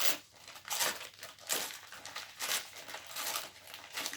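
Newspaper wrapping crumpling and crinkling in quick, irregular bursts as a small wrapped toy is unwrapped by hand.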